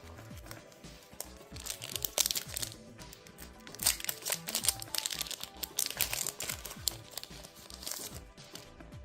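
Foil Pokémon TCG booster pack wrapper crinkling and being torn open by hand, in loud irregular crackles, over background music.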